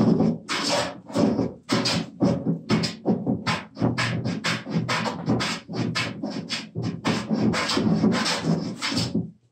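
Wooden jointer plane cutting shavings in rapid, repeated strokes across a laminated wooden workbench top as it is flattened, about two to three strokes a second, stopping suddenly near the end.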